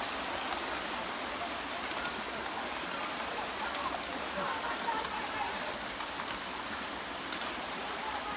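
Shallow river rushing steadily over rocks in a riffle.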